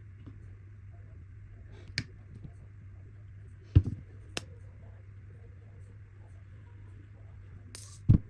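Kitchen items being handled: a few separate knocks and clicks, two of them loud, over a steady low hum.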